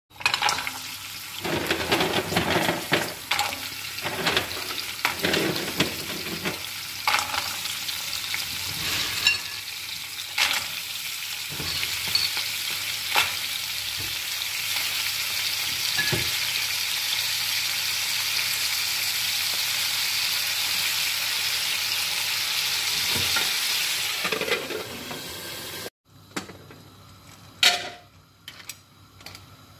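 Mussels and clams sizzling in hot olive oil in an aluminium pan, with irregular knocks and clatter of shells and pan during the first several seconds, then a steady sizzle. The sizzle cuts off sharply near the end, leaving quieter bubbling with a few clicks.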